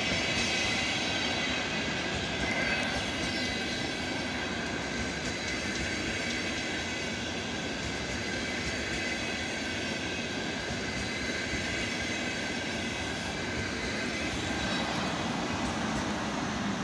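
EKr1 Tarpan electric multiple unit running past on the rails and pulling away: steady rolling wheel noise with a high whine over it, fading near the end.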